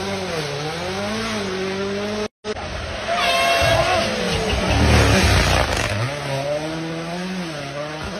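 Rally1 cars' turbocharged engines revving as they pass at speed on gravel, the pitch climbing and falling with each gear change and lift. The sound breaks off briefly about two seconds in, where one pass cuts to another.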